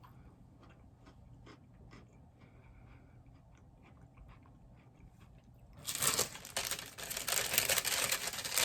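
Close-miked eating of a chewy cookie: quiet chewing with small, scattered mouth clicks. From about six seconds in comes a sudden loud, dense crinkling and crunching that carries on to the end.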